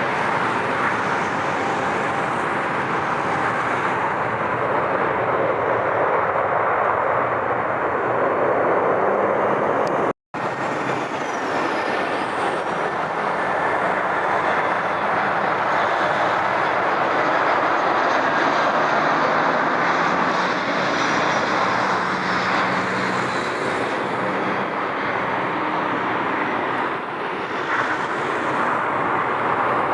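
Jet airliner engines running at close range, a steady loud rush with a faint falling whine on top. The sound drops out for a moment about ten seconds in.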